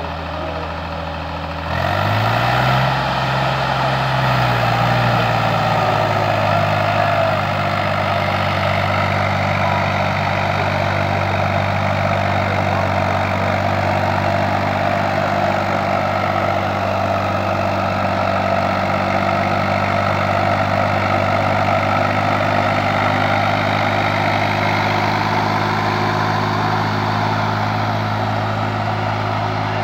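Swaraj 855 tractor's three-cylinder diesel engine working under load, pulling a tandem disc harrow through tilled soil. About two seconds in it gets louder and rises in pitch, then settles into a steady run.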